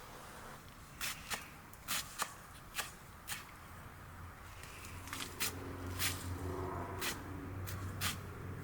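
Irregular sharp taps or knocks, roughly one a second, with a low steady hum joining about five seconds in.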